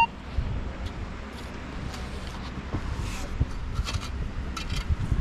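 Sand and small stones rattling and scraping in a perforated stainless steel sand scoop as a scoopful of beach sand is shaken and sifted by hand to find a detected coin, in irregular short rasps and clicks.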